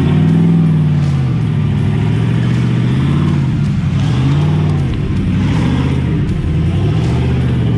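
Big-block V8 engine of a Jeep LJ-based rock buggy revving up and down under load as it climbs over rock, its pitch rising and falling about every two seconds.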